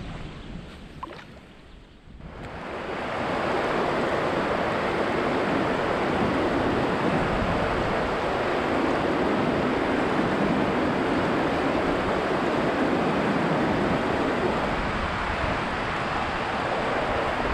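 Fast-flowing river rushing over rocks through rapids: a steady rush of water that starts suddenly about two seconds in, after a quieter opening.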